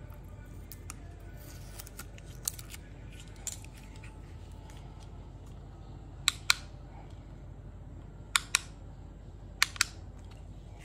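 Plastic switch on a Tesla LED headlamp's battery case being clicked: three sharp double clicks in the second half, a second or so apart, after a few lighter handling clicks.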